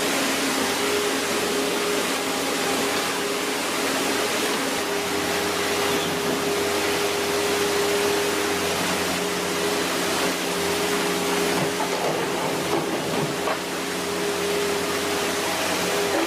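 A machine running steadily: a constant loud rushing noise with a steady hum.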